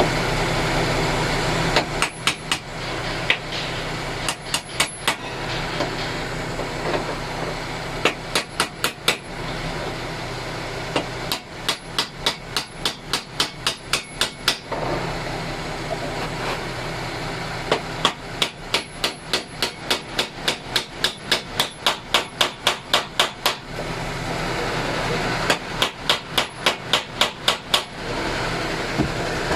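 Hammer strikes on metal parts of a truck alternator, in six bursts of quick, even taps about five a second with short pauses between.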